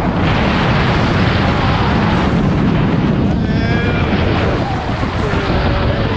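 Wind buffeting the camera microphone during a tandem skydive under an open parachute: a loud, steady, low rumble of rushing air.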